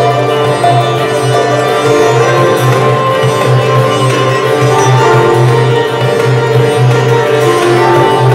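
Live Indian-Japanese ensemble music: a sitar playing a melody together with a koto and a hand drum, over a low sustained tone.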